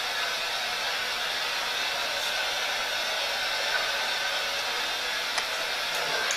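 A steady, even hiss, with a couple of faint ticks near the end.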